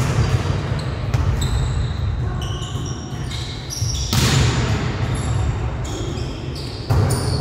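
Volleyball being struck during play on an indoor court. Several sharp smacks of the ball echo through the hall, the hardest a spike at the net about four seconds in. Sneakers make short high squeaks on the floor between the hits.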